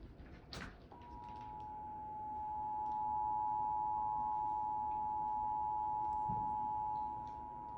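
Emergency Alert System attention signal: a steady two-tone chord of 853 and 960 Hz. It starts about a second in, swells in level over the next two seconds and dips slightly near the end.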